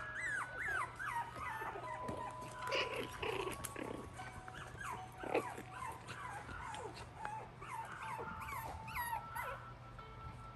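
Maltese puppies yipping and whining in many short, high, bending cries as they play-wrestle, over soft background music with held notes.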